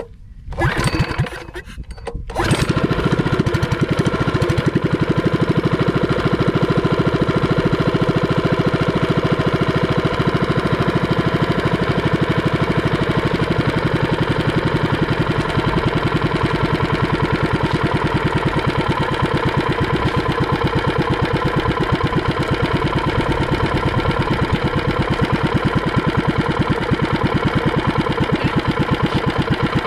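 Small single-cylinder OHV gasoline engine starting about two seconds in, after a couple of short bursts, then running steadily with a fast even beat through a short open exhaust pipe.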